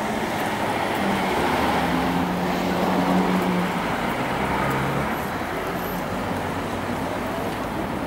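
Street traffic: a car engine running close by, its low hum loudest about two to four seconds in, over the steady noise of the street.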